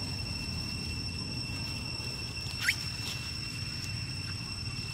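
A single short squeal rising sharply in pitch, about halfway through, typical of a long-tailed macaque. It sits over a steady high-pitched whine and a low outdoor rumble.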